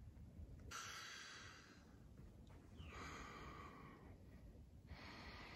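Faint, heavy breathing of a person climbing a sand dune on foot: three long breaths about two seconds apart, the labored breathing of uphill exertion.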